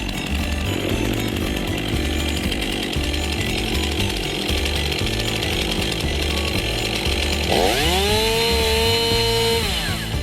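Chainsaw running, then revved up sharply near the end and held at full throttle for about two seconds while cutting a log, before the revs drop back.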